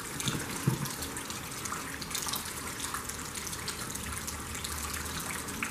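Steady background hiss with no distinct events.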